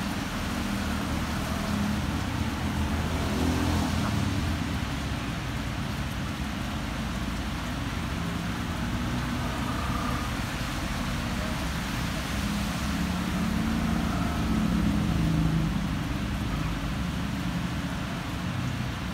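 Heavy rain falling steadily as a continuous hiss, mixed with the low rumble of road traffic passing.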